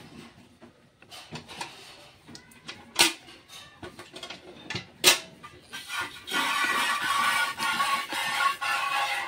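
A steel milk pail is handled with a couple of sharp metallic knocks. From about six seconds in, jets of milk squirt into it by hand, a loud hissing spray that sets the pail ringing.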